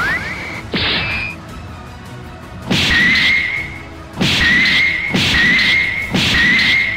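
Cartoon fight sound effects over background music: a rising whistle and a hit, then four more hits about a second apart, each trailed by a high whistling swish lasting about a second.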